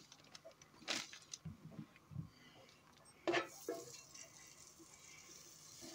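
Faint, scattered knocks and scrapes of a spatula against a large cooking pot as lumps of solid bacon grease are dropped in.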